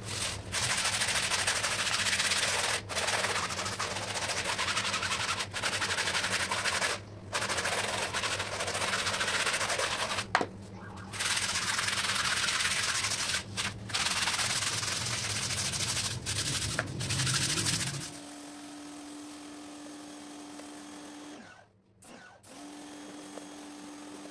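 Stiff plastic hand brushes scrubbing a wet, soapy rug: fast, dense scratching with a few brief pauses. About three quarters of the way through it gives way to a quieter steady hiss with a faint hum.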